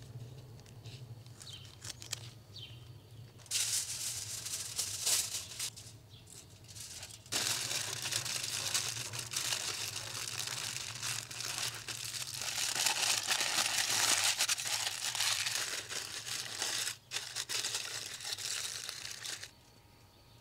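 Aluminium foil crinkling and rustling as it is torn and wrapped around the bone tips of a rack of beef ribs. It starts a few seconds in, grows louder after about seven seconds and stops abruptly shortly before the end.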